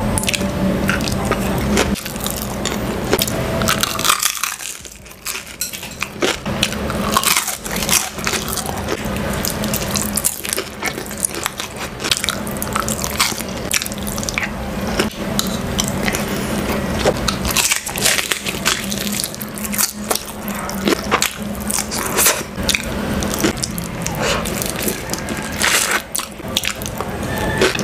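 Close-miked eating sounds: many sharp crunches and crackles from biting and chewing crispy fried chicken batter, mixed with wet chewing and spoon sipping, with a brief lull about four seconds in.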